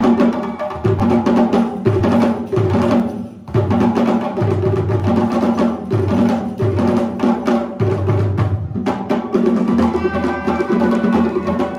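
Traditional West African hand drums, djembes among them, played live in a fast, steady rhythm for a masked dance, with a low two-note pattern alternating about twice a second underneath.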